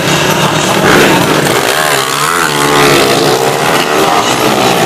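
Drag-racing motorcycle engines revving hard and accelerating away off the start line. The engine note rises, dips and climbs again as the bikes pull away down the strip.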